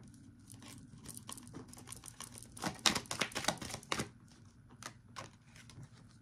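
Tarot cards being handled: a run of quick clicks and flicks, densest and loudest from about three to four seconds in, then a few scattered ones.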